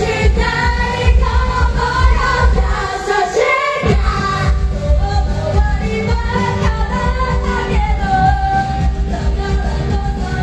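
Live pop-rock music with female vocals singing over a heavy, driving beat. The band drops out briefly about three seconds in, then comes straight back.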